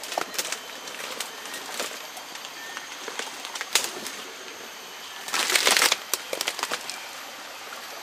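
Leaves and branches rustling and twigs crackling underfoot as people push through dense undergrowth, with one loud brush of foliage about five seconds in, over the steady hiss of a forest stream.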